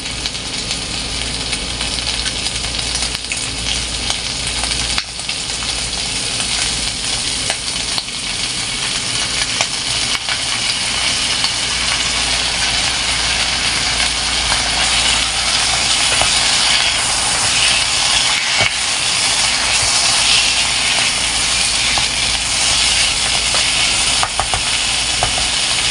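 Chopped chicken liver and gizzards frying in oil in a pan: a steady sizzle that grows gradually louder, stirred with a spatula, with a few light clicks.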